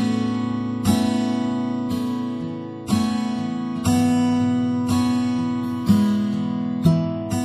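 Acoustic guitar (violão) playing slow, ringing chords, each new chord struck about once a second and left to sustain.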